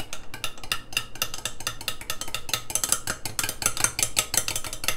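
A metal spoon stirring a liquid in a glass measuring cup, clinking quickly and repeatedly against the glass, several clinks a second.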